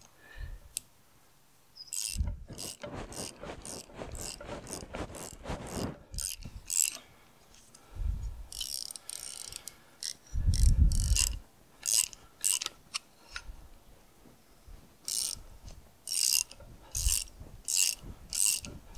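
Socket ratchet clicking as it turns the puller bolts that push the inner taper roller bearing off a tractor final drive shaft. A fast run of clicks comes about two seconds in, a couple of dull thuds midway, then slower single clicks, about two a second, near the end.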